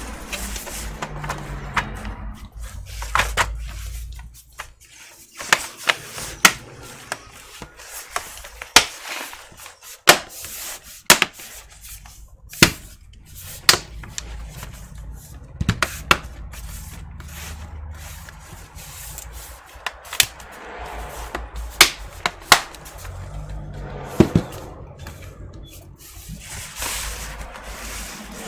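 Irregular sharp clicks, taps and small knocks from handling a laptop's plastic case parts and screws during reassembly, over quiet background music.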